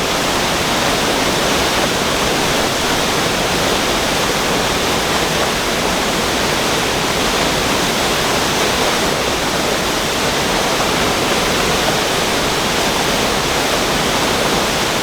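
Water rushing through a lake's overflow spillway, swollen by spring rains: a loud, steady, unbroken rush.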